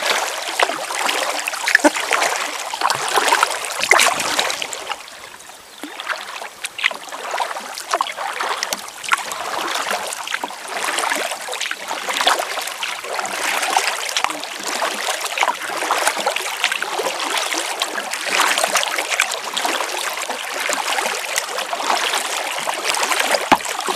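Kayak paddle strokes splashing in river water, with water trickling and dripping off the blades, and a short lull about five seconds in.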